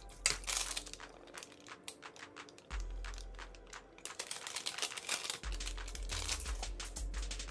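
A plastic packet of ground turmeric crinkling as it is shaken out, with metal tongs clicking and scraping against a stainless steel bowl of raw chicken pieces. Background music with a low bass line plays underneath.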